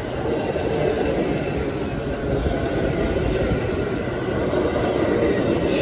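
A train rolling past with a steady rumble of wheels and cars on the rails, and a faint high wheel squeal over it.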